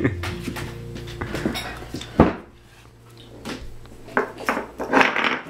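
Airedale terrier puppy's claws clicking and scrabbling on a ceramic tile floor while it plays with a tennis-ball rope toy, with sharp knocks of the toy on the tiles. There is one loud knock about two seconds in, a short lull, then busy clattering in the last second and a half.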